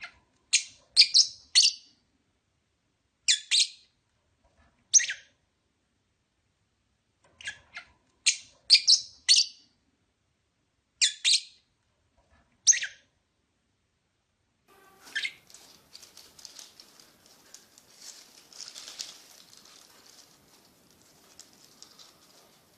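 Fischer's lovebirds giving short, sharp, high-pitched chirps in quick clusters of two to four. About fifteen seconds in the calls stop and give way to a softer, continuous scratchy rustle with faint chirps.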